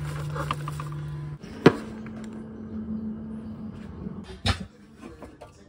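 Refrigerator door pushed shut with one sharp knock about a second and a half in, just after a steady low hum stops. A second, softer knock follows a few seconds later.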